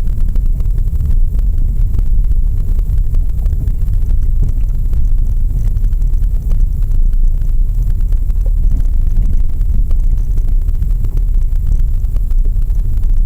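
Lada Vesta SW being driven over a rough road: a loud, steady low rumble of tyre, road and running noise with some wind on the microphone.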